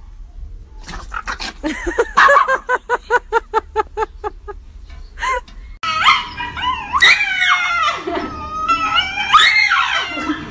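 A dog yipping in a fast run of short, high barks, about three a second. After that, a Shiba Inu having its nails clipped screams and whines in long wavering cries that rise and fall: a dog protesting the nail trim.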